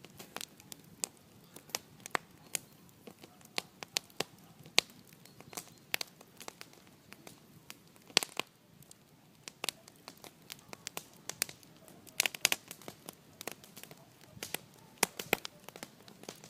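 Wood bonfire crackling, with irregular sharp pops several times a second and a few louder pops about eight and twelve seconds in.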